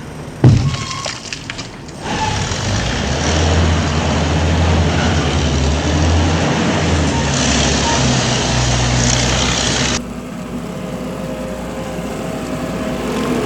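A sharp bang about half a second in, then a heavy truck engine running loudly for about eight seconds before cutting off abruptly, followed by a quieter, steady engine hum.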